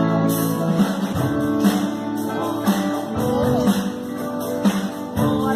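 Music: a Christian song played with acoustic guitar strumming under sustained chords.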